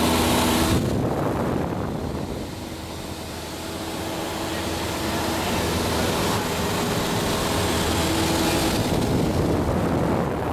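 Light aircraft's engine and propeller droning steadily, heard inside the cabin, with a steady hum of engine tones under rushing noise. It dips and sounds duller for a couple of seconds early on, then comes back up.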